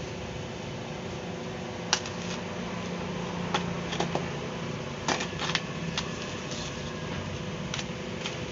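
Irregular sharp clicks and scrapes of a utility knife cutting packing tape on a polystyrene foam box, about ten in all, over a steady fan hum.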